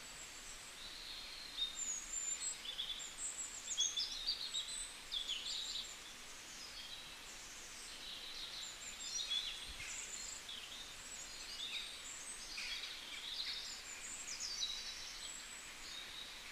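Small birds chirping and twittering: many short, high calls, some sliding up or down, coming in busy bursts over a faint steady hiss.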